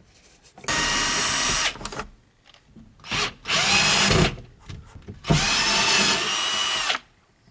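Power drill-driver run in three bursts of about a second or more each, its motor whining, backing out the screws of a sun visor.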